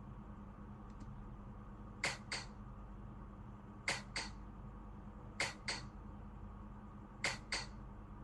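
Four sharp double clicks, the two clicks of each pair a quarter second apart and the pairs coming every second and a half to two seconds, over a low steady hum.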